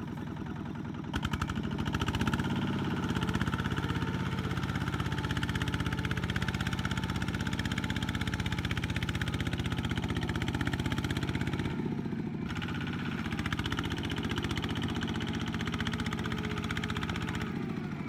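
Two-wheel walking tractor's single-cylinder diesel engine pulling a loaded rice trailer through mud, running steadily under load. It picks up and gets louder about a second in, and drops briefly about twelve seconds in.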